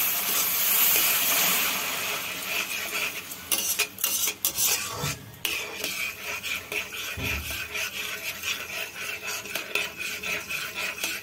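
Metal spatula stirring and scraping semolina in a kadai as water is added: a hissing sizzle from the hot pan for the first couple of seconds, then repeated quick scraping strokes against the pan.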